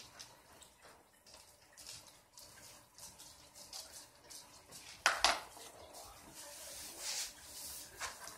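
Small metal tools and parts clinking and tapping as they are handled and set down on a wooden floor, with one louder clack about five seconds in.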